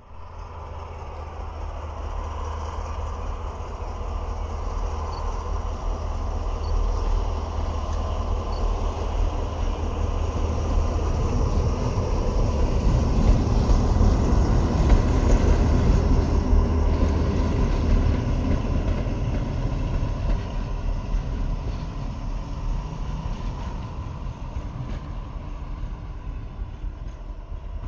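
SNCF BB 67400-class diesel locomotive no. 67558 running past: its deep engine drone grows louder to a peak about halfway through as it passes close, then fades as it moves away down the track.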